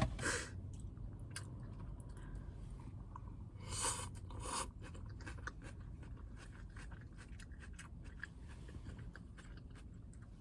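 Close-up chewing and crunching of salad, with a sharp click at the start and a couple of louder scuffing noises about four seconds in.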